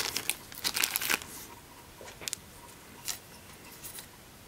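Clear plastic packaging bags crinkling as small circular saw blades packed in them are handled, mostly in the first second or so, followed by a few light clicks.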